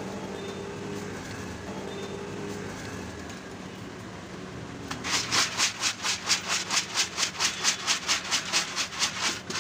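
Dried peas swishing and rattling in a large aluminium pot as it is shaken back and forth, about four to five shakes a second, starting about halfway in and stopping just before the end; the shaking coats the peas in turmeric masala.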